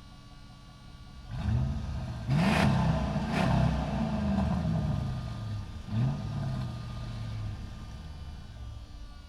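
Motorcycle engine idling and being revved with the throttle. It revs up about a second and a half in, gives two sharp blips soon after, revs once more about six seconds in, and the pitch falls back toward idle after each rev.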